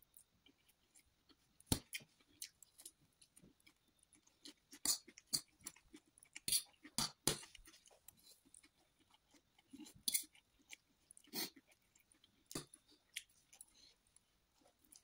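Close-up eating sounds: chow mein noodles slurped into the mouth and chewed, a string of irregular wet smacks and slurps, busiest about a third of the way in and again near the two-thirds mark.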